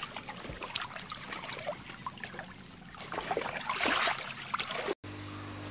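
Splashing, trickling water that swells twice and cuts off suddenly near the end.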